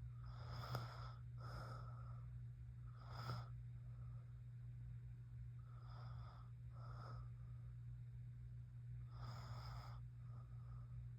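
A sleeping woman breathing heavily in light snores, each in-breath and out-breath heard as a soft rasp, about one breath every three seconds.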